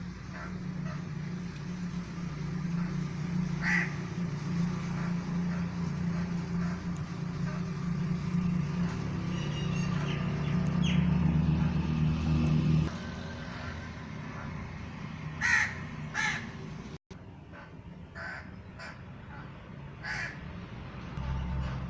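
Crows cawing: single short caws spaced out, one early and a cluster of several in the last third. Under them a steady low hum runs through the first two-thirds and drops away fairly suddenly.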